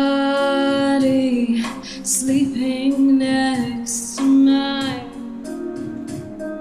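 A woman singing long held notes with a small-venue microphone over a low, steady instrumental accompaniment with a faint regular beat.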